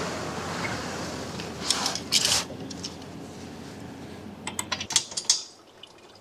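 Small metallic clicks and rattles of hands and a tool working a wire terminal on a cargo trailer's frame ground connection: a few sharp clicks about two seconds in and a cluster near five seconds. Under them a rushing noise fades away over the first five seconds.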